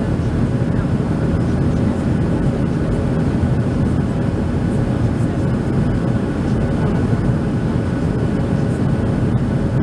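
Steady cabin noise of a Boeing 737-700 in flight, heard from a window seat over the wing: the CFM56 turbofan engines and the rush of air over the fuselage blend into an even, low-pitched drone with a few faint steady tones above it.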